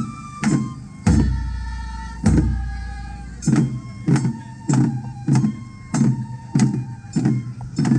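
Japanese festival float music (matsuri hayashi): taiko drums beaten in a steady rhythm, about one strike every 0.6 seconds, under a high flute melody of held notes. Two deeper booms come a little after one second and two seconds in.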